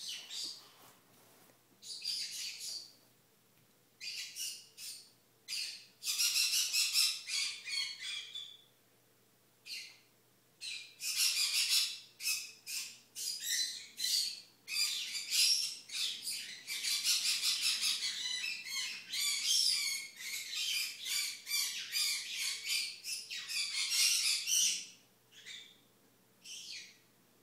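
A bird squawking in repeated rough, high-pitched bouts: short bouts with gaps at first, then almost without pause from about eleven seconds in, dying away near the end.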